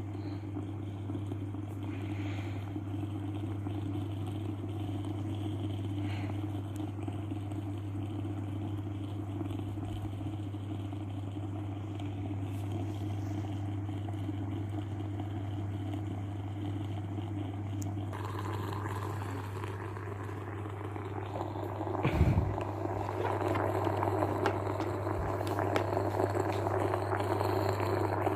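Dr. Korpet electric steam vaporiser running with a steady electrical hum. About two-thirds of the way through, water starts to bubble and hiss as it comes to the boil, and there is a single knock shortly after.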